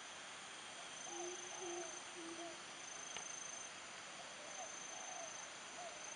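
Tropical insect chorus of crickets: a steady high-pitched trill that breaks off and resumes, over a hiss. A few faint short low animal calls come in around the first and last thirds, with a single click near the middle.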